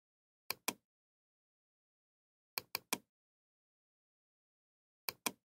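Computer mouse clicking: a double click about half a second in, three quick clicks about two and a half seconds in, and another double click near the end, with dead silence between.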